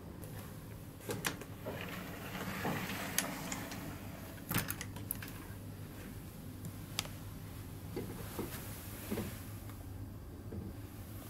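Pleated accordion-style folding door being handled and slid, with a rustle and a series of light clicks and knocks from its plastic handle and frame, over a steady low hum.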